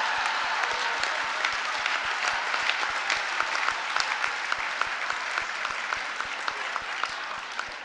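Large audience applauding after a punchline, dense clapping that gradually thins out and fades, with individual claps standing out as it dies down.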